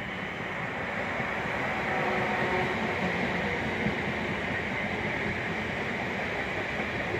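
South Western Railway Class 444 Desiro electric multiple unit running along the platform: a steady rumble and hiss of wheels on rail, growing louder over the first couple of seconds as the train draws level, then holding steady.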